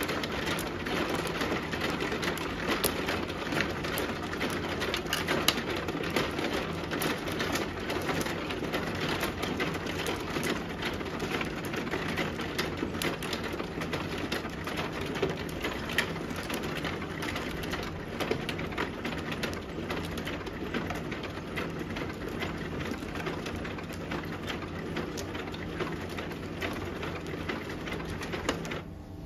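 Mahjong tiles clicking and clacking as players draw them, set them down and discard them onto the felt of an automatic mahjong table: a near-continuous patter of small sharp clicks, with a low steady hum underneath.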